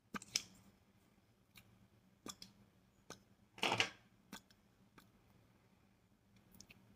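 Faint, scattered small clicks and taps, with one short rustle a little past the middle: small handling noises close to the microphone.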